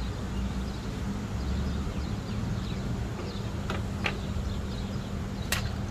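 Sharp plastic clicks and knocks as an IPDM circuit board is handled and fitted into its black plastic fuse-box housing: two close together about midway and a sharper one near the end, over a steady low hum.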